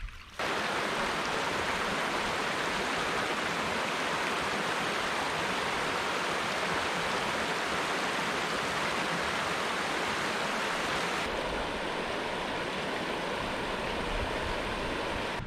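Snowmelt stream rushing over stones, a steady rush of water that starts abruptly about half a second in and shifts slightly in tone about three quarters of the way through.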